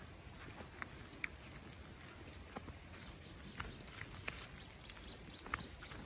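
Faint footsteps on a dirt path through tall grass: a few light, irregularly spaced ticks over a low steady outdoor hiss.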